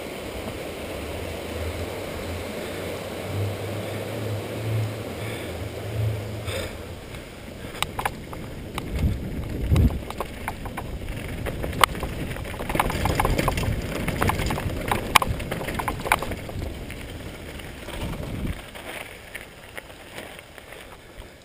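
Mountain bike riding downhill, with wind rush on the microphone and tyre noise throughout. A low rumble runs while it crosses a wooden plank bridge. On the rough dirt trail after it, the frame and chain rattle and click sharply. The rumble drops away and the sound eases near the end as the bike slows on a gravel road.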